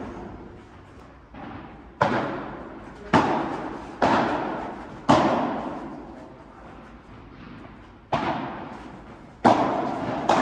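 Padel rally: sharp pops of rackets striking the ball, about seven in all, mostly about a second apart with a longer pause in the middle. Each pop rings out in the echo of a large indoor hall.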